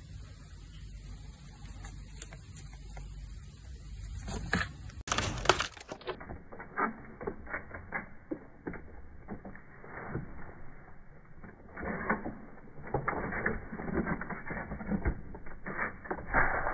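A chipmunk's exercise wheel spinning as the animal runs in it, rattling with many irregular knocks. This starts about five seconds in, after a few seconds of faint low hum.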